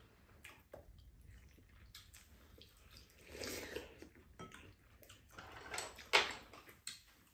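Quiet eating sounds: metal spoon and chopsticks clicking against bowls, with mouth sounds of eating, and a sharper click about six seconds in.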